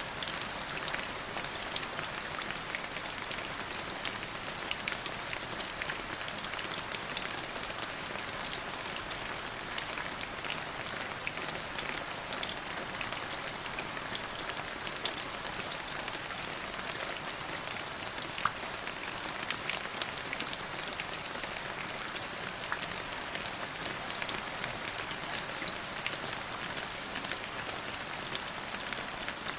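Steady rain falling, a continuous hiss of rain with many individual drop ticks through it.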